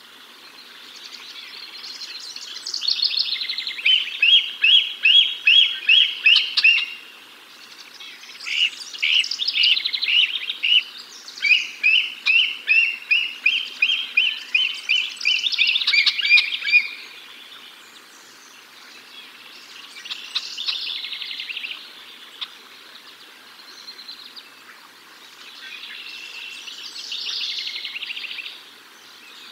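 Bald eagle calling: bouts of rapid high chirping notes, about three a second, loudest in the first half, with fainter shorter bouts near the end.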